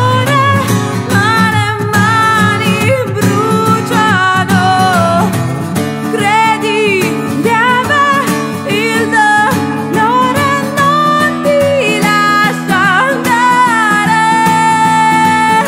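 A woman's sung melody over fingerpicked Lakewood acoustic guitar, the voice holding one long note near the end.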